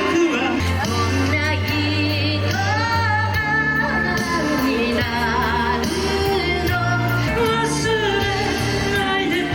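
Live pop song performed on stage: a singer with a full band backing, a steady bass line under the melody.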